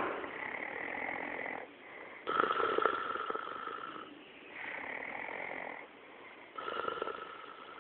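A man snoring heavily in deep sleep: three louder snores, the first right at the start and the others about two and six and a half seconds in, each followed by a softer, higher breath.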